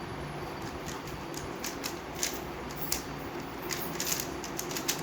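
Rapid clicking and clacking of a MoYu WRM V10 Ball-Core 3x3 speedcube's layers being turned fast in a speedsolve, irregular taps coming several per second from about a second in, over a steady low hum.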